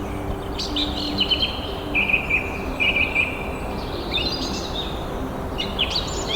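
Small songbirds chirping and trilling in short, repeated phrases over a steady background hiss.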